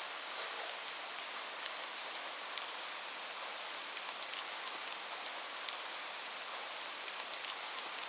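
Light rain falling steadily: an even hiss with scattered individual drops ticking, a few a second.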